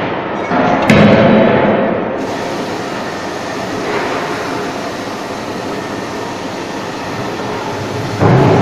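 A C92K-series fully hydraulic CNC die-forging hammer striking a hot workpiece in a closed die. There is a heavy blow about a second in, a lighter one around four seconds and another heavy one near the end, over steady machinery noise.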